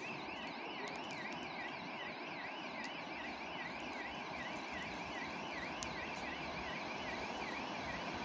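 Railway level-crossing warning signal sounding its electronic warble, a high tone going rapidly up and down about three times a second, as a train approaches.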